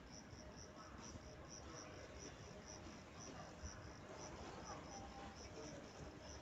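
Faint insect chirping: a short high chirp repeating evenly, about two to three times a second, over a steady low background rumble.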